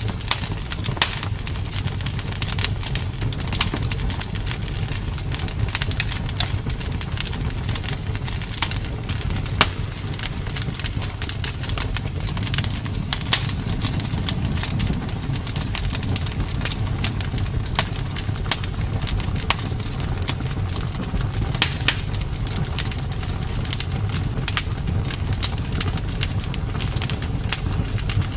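Fireplace fire crackling: a steady low rumble with frequent sharp, irregular pops and snaps.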